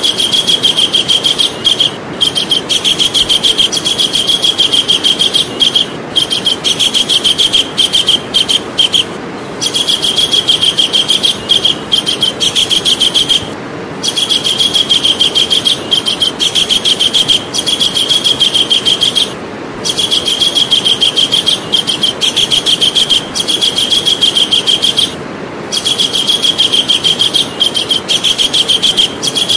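Javan kingfisher calling in long, rapid, high rattling trills, each run lasting several seconds with brief pauses between, over a steady background hiss.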